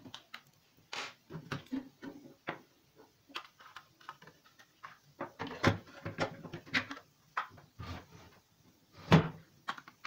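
Hard plastic microwave control panel, with the timer mounted on it, being handled and knocked against the oven: a string of irregular clicks and knocks, the loudest about nine seconds in.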